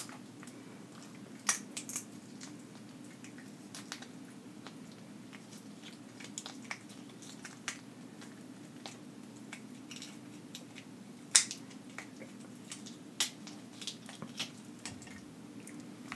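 Boiled shrimp shells cracking and snapping as they are peeled apart by hand: scattered sharp crackles, the loudest about eleven seconds in, over a faint low steady hum.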